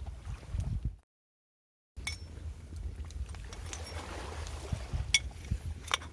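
Outdoor seaside ambience: wind rumbling on the microphone, with a few sharp clicks. The sound drops out completely for about a second, near the start.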